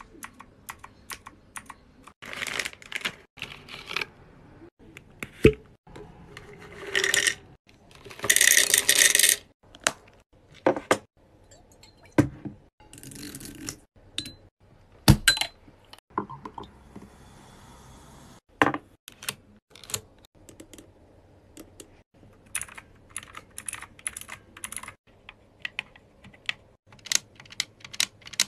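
Mechanical keyboard keys clacking, then a plastic drink bottle handled, then quick clicks of Xbox controller buttons. A loud rushing hiss lasts about a second and a half around eight seconds in.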